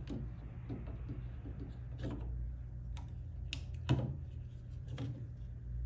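Scattered light clicks and knocks, the loudest about four seconds in, as a SawStop dado brake cartridge is pushed and seated onto its mounting pins inside the table saw, over a steady low hum.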